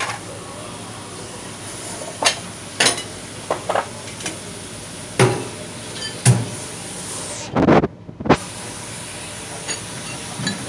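Ramen shop ambience: a steady hiss with scattered clinks and knocks of dishes and utensils, and a louder clatter about eight seconds in.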